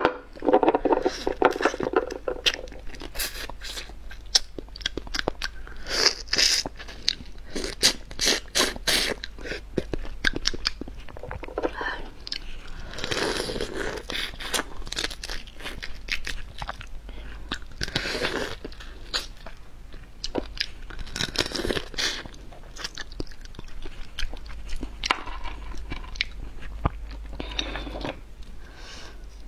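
Close-up crunching and chewing of cooked hermit crab: repeated sharp cracks as the shell and legs are bitten and chewed, coming in clusters, with wetter chewing between them.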